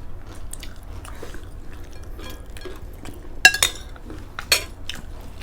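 Eating at a table: cutlery clinking against plates, with chewing. There are scattered small clicks and two sharper clinks past the middle.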